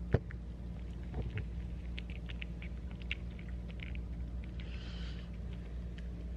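A cat eating wet food from a stainless steel bowl: soft, irregular chewing and licking clicks, with one sharper click just after the start. A steady low hum runs underneath.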